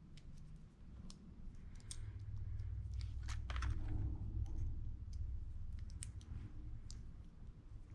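Small metal clicks and light scrapes, scattered and irregular, from tools and fingers working on an old Ronson lighter's parts, with a cluster of louder clicks about three seconds in and a low rumble of handling in the middle.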